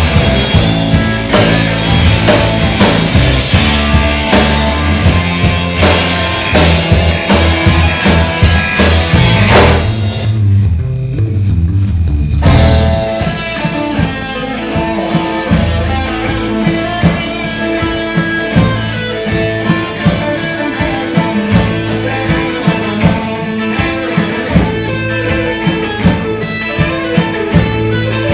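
Live rock band playing: two electric guitars, bass guitar and drum kit. About ten seconds in the drums drop out for a couple of seconds, leaving guitar and bass ringing, then come back in with a cymbal crash under repeated picked guitar notes.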